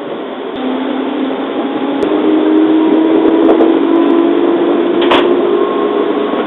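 205-series electric train running, heard from inside the carriage: a steady rumble with a motor and gear whine that slowly rises in pitch as the train gathers speed. A sharp click comes about five seconds in.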